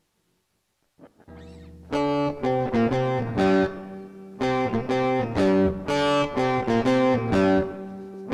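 Solo guitar, with no drums, playing a repeating riff of held and short notes. A quieter note sounds about a second in, and the riff proper comes in at full volume about two seconds in.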